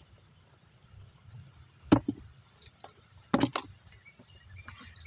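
A few sharp clicks as prawns and small catfish are shifted by hand in a plastic tub: one about two seconds in, then two close together about a second and a half later. Underneath, insects chirp in an even rhythm.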